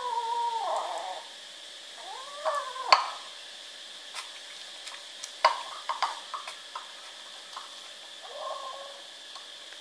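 Kittens mewing while competing at a food bowl: a drawn-out mew at the start, another short mew about two and a half seconds in, and a softer one near the end. A sharp knock about three seconds in is the loudest sound, with lighter clicks a couple of seconds later.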